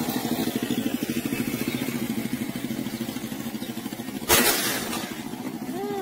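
An engine runs steadily with a fast pulsing beat. About four seconds in comes a single sharp rifle shot that hits a perched bird. Bird chirps start right at the end.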